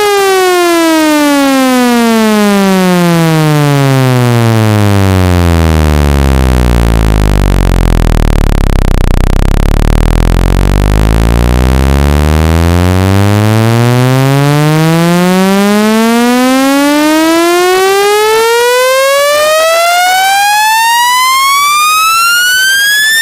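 Electronic buzzy test tone sliding smoothly down in pitch to a deep hum, holding low for several seconds around the middle, then sliding steadily back up to a high pitch: a speaker-cleaning sweep meant to shake water and dust out of a phone speaker.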